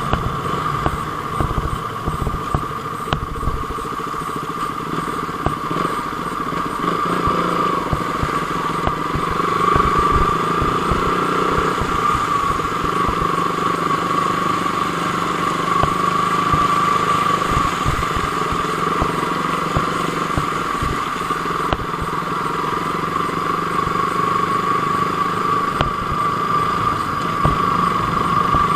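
KTM motorcycle engine running steadily while riding, with a constant whine and wind buffeting the microphone.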